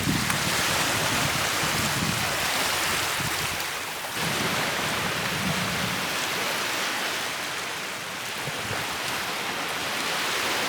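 Sea surf washing onto a beach: a steady rushing noise that dips briefly about four seconds in.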